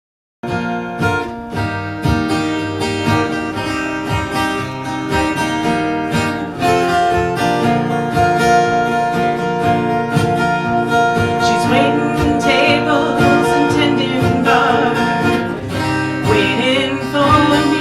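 Acoustic guitar strumming the instrumental intro of a country song; it starts about half a second in. From about twelve seconds in, a wavering lead melody plays on top.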